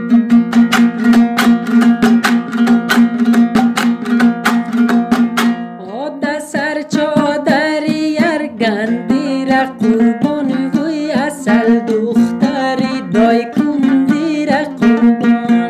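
Music intro: a plucked string instrument strummed in fast, even strokes over a steady low drone. About six seconds in, a bending, wavering melody line joins it.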